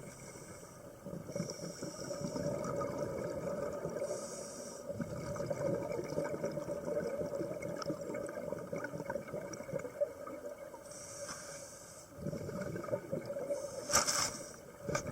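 Scuba diver breathing through a regulator underwater: short high hisses of inhalation alternate with the low bubbling rumble of exhaled bubbles. A sharp short noise sounds near the end.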